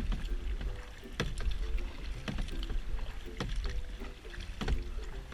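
Kayak paddling: the paddle blades dip into the water in a steady rhythm, a sharp stroke about once a second.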